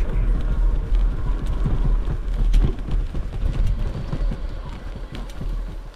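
Wind buffeting the microphone and a low rumble from a QuietKat electric bike riding over rough grass, with a few faint rattles. The rumble fades near the end.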